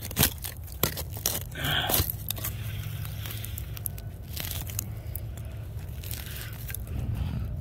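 Metal tines of a hand digging claw scraping and raking through packed soil and roots, with irregular crunches and scratches of dirt and small stones, and dirt pulled away by hand.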